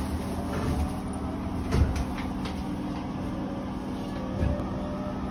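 Chiba New Town Railway 9800-series subway train running, heard from inside the car: a steady rumble, with the traction motors' whine slowly rising in pitch from about four seconds in as the train gathers speed. A single knock just under two seconds in.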